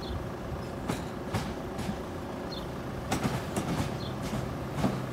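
Class 395 Javelin electric multiple unit approaching over the level crossing: a steady low rumble with a scattering of sharp clicks, more of them in the second half.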